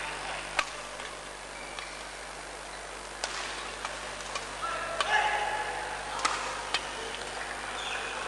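Badminton rally: rackets striking a shuttlecock, about eight sharp hits at irregular intervals of half a second to a second and a half, over the steady murmur of the sports hall.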